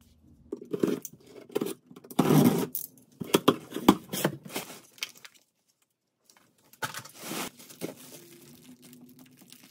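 A cardboard delivery box being opened by hand: packing tape ripping off and cardboard flaps scraping and crinkling, in a run of short bursts with a pause of about a second in the middle. The loudest tear comes about two seconds in.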